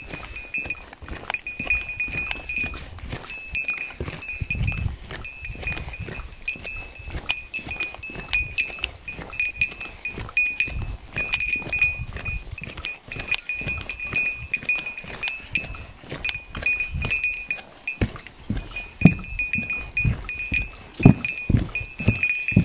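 A small hiker's bell, the kind carried against bears, jingling steadily as the walker moves, over footsteps thudding on wooden boardwalk planks that grow heavier near the end.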